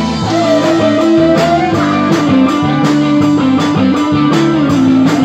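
Live band music: a guitar plays a melodic lead with sliding, held notes over a steady beat, with no singing.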